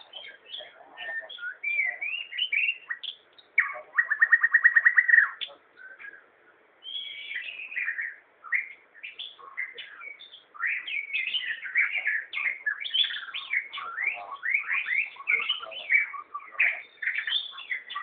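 A shama singing a varied song of quick whistled and chattering phrases. About four seconds in comes a fast run of a dozen or so identical notes. After a short lull the bird goes into a dense, rapid stream of phrases.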